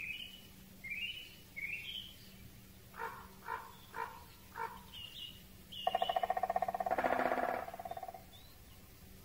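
Great spotted woodpecker drumming: a rapid roll of knocks on wood about six seconds in, lasting a little over two seconds and slowing at the end. Before it, another bird gives short rising chirps, then four short calls about half a second apart.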